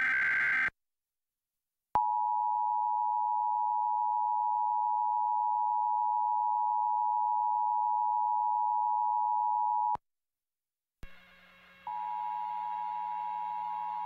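Emergency Alert System broadcast: the tail of a screechy digital header data burst, then the EAS two-tone attention signal (853 and 960 Hz sounded together) held steady for about eight seconds and cutting off sharply. After a second of silence the two-tone signal comes back over background hiss and hum about two seconds before the end.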